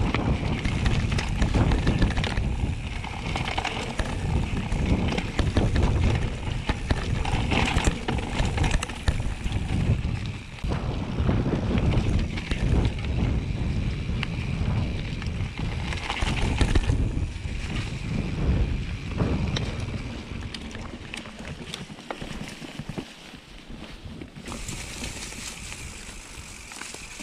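Wind buffeting the microphone over the rumble and rattle of a bicycle rolling down a rough trail, with scattered clicks and knocks; it grows quieter in the last several seconds.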